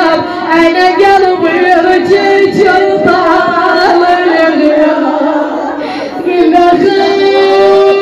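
A woman chanting a slow southern Iraqi Shia mourning lament (naʿi) in Arabic, her voice rising and falling over a steady held drone.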